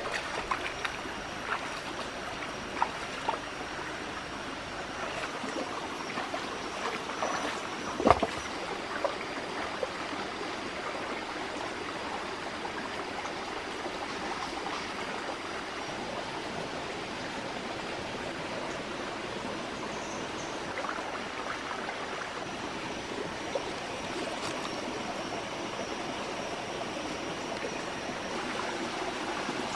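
A shallow rocky stream running steadily, with splashing steps through the water and a few sharp knocks in the first ten seconds, the loudest about eight seconds in.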